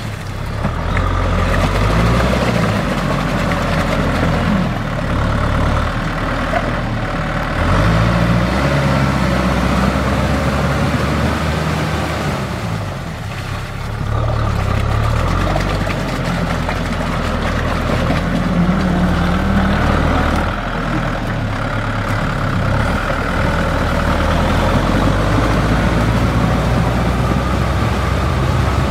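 Kubota M6040 tractor's diesel engine running steadily under load, driving a rear rotary tiller through wet paddy mud, the sound easing briefly about halfway through.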